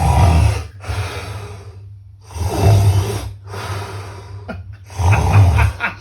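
A man snoring loudly: about five rough breaths in a row, each lasting roughly a second.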